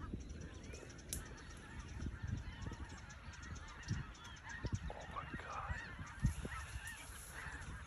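A large flock of snow geese calling: a constant clamour of many overlapping honks and yelps. The calling grows denser about five seconds in, as birds lift off the field.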